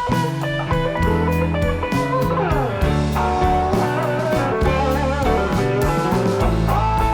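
Background music led by guitar, with a bluesy feel and a steady bass line.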